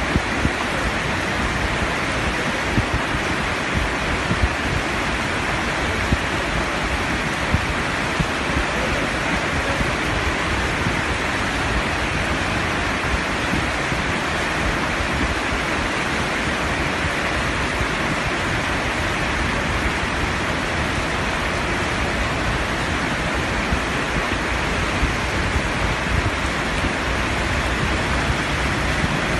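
Steady, loud rushing of water without a break, with a few brief louder spatters, from rain-driven water in the muddy highlands.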